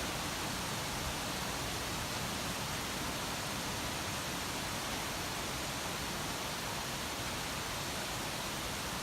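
Steady, even hiss of white-noise storm ambience, unchanging, with no thunder in it.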